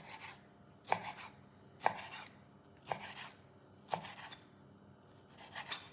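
Chef's knife chopping raw chicken breast into chunks on a wooden chopping board, the blade knocking on the board about once a second.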